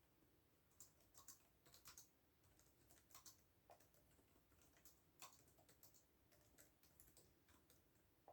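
Quiet typing on a computer keyboard: irregular runs of soft key clicks with short pauses between them.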